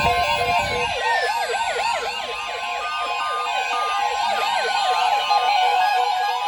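NOAA Weather Radio's steady 1050 Hz attention tone begins about a second in and holds. It marks a tone-alerted warning or watch about to be read. Louder music with rapid rising-and-falling glides plays over it.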